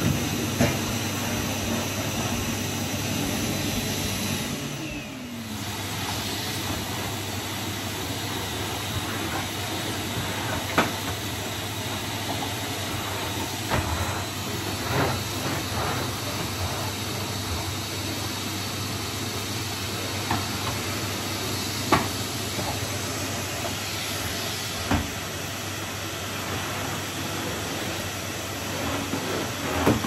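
Numatic Henry cylinder vacuum cleaner running steadily with a constant motor hum and rush of air, level dipping briefly about five seconds in, with a few sharp knocks scattered through.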